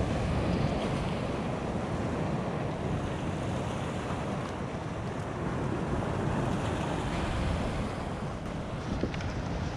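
Steady wind rumble on the microphone with water lapping against a kayak hull.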